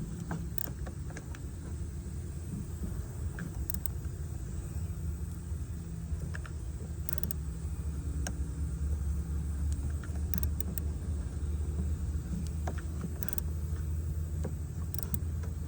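Irregular light clicks and clinks of hand tools working the negative battery cable clamp off a car battery, over a steady low rumble.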